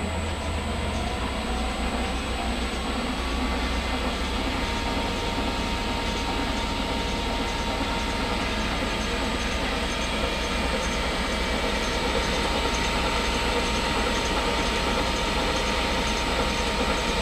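Grizzly G0752Z 10x22 metal lathe with its spindle running and the chuck spinning: a steady mechanical run with a faint whine. The whine rises a little in pitch over the first few seconds as the spindle-speed dial is turned up from about 390 to about 880 rpm, then holds steady.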